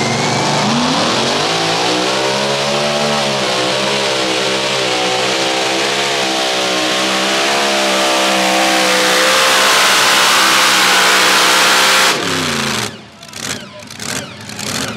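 Pulling tractor at full throttle dragging the weight-transfer sled down the dirt track: the engine revs up over the first couple of seconds and holds a loud, wavering pitch over a heavy hiss. About twelve seconds in the throttle is cut and the engine pitch falls quickly as the tractor comes to a stop.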